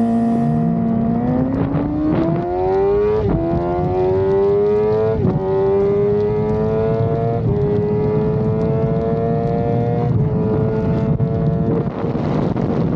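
Honda CB500 motorcycle's parallel-twin engine accelerating hard, upshifting about every two seconds, with the pitch climbing in each gear and dipping briefly at each shift. Wind noise rises over the engine near the end.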